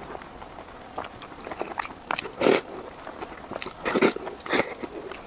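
Close-miked eating of soupy rice from a wooden spoon: wet chewing and smacking with small clicks. Louder wet slurping bursts come about halfway through and again about four seconds in, as a spoonful goes into the mouth.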